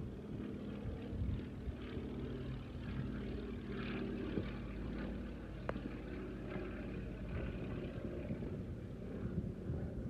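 Fairey Swordfish biplane's Bristol Pegasus nine-cylinder radial engine running in flight, a steady low drone, with one sharp click about halfway through.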